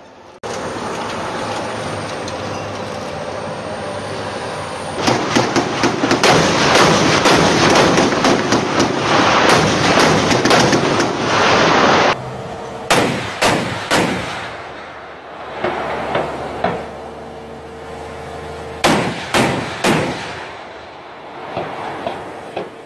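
Gunfire at a demonstration of wheeled armoured fighting vehicles: a long run of rapid, continuous shots, then short groups of sharp single reports a few seconds apart.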